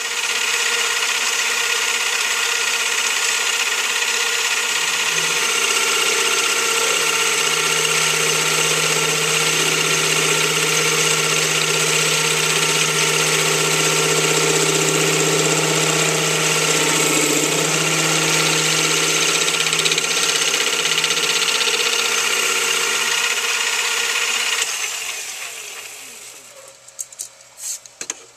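Metal lathe running steadily, a whine made of several steady tones as the chuck spins. About 25 seconds in it is switched off and winds down over a couple of seconds, followed by a few light clicks.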